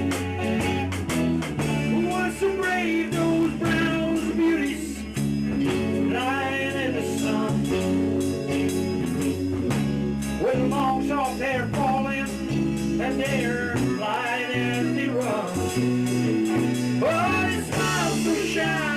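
Rock band playing a song live at a rehearsal: a singer over guitar, a bass line and drums with cymbal strokes.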